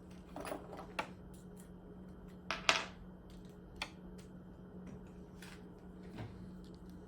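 Scattered small clicks and taps of a screwdriver and loose driver bit working against the machine's metal and plastic parts, the loudest a sharp double click about two and a half seconds in. A steady low hum runs underneath.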